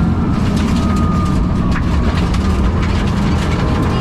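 Rally car's engine running steadily under load inside the cabin, with a thin gear whine from the dog-box transmission; the engine has a bad misfire and is down on power.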